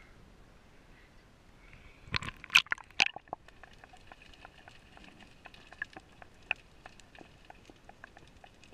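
A camera plunging from the sea surface under the water about two seconds in, with a brief cluster of loud splashes and gurgles. After that comes the muffled sound under the water, a faint steady hum with many small scattered clicks.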